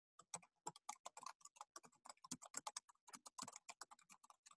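Computer keyboard typing: a quick, uneven run of faint keystrokes.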